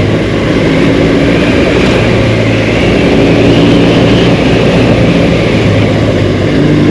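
Dual-sport motorcycle engine running at a fairly steady cruise, with wind rushing over the microphone.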